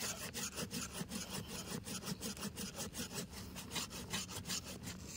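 Curved-blade hand saw cutting back and forth through a thick woody ileng-ileng root about 12 cm across, in a quick, even rhythm of strokes. Its teeth bite on both the push and the pull.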